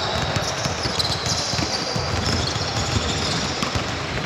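Basketballs bouncing on a court: a rapid, irregular run of overlapping bounces.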